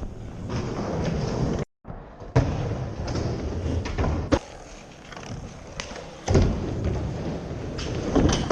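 Skateboard wheels rolling, with several sharp clacks and thuds of the board hitting the surface about two seconds apart. The sound cuts out completely for a moment just before two seconds in.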